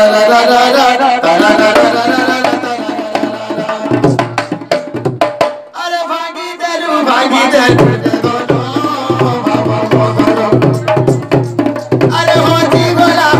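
A man sings a folk song while playing a two-headed rope-tuned barrel drum with his hands, a steady beat under the wavering vocal line. The drum's deep low strokes grow stronger about eight seconds in.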